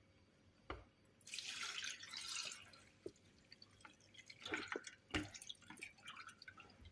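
Liquid pouring for about a second and a half, after a single knock, then a run of small clinks, knocks and drips from kitchenware.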